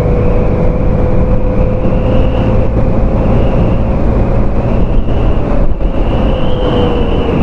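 Honda SH150i scooter's 150 cc single-cylinder engine pulling hard at speed, around 100 km/h. A steady drone holds nearly level, edging up slightly and easing off near the end. It is heard under heavy wind rush.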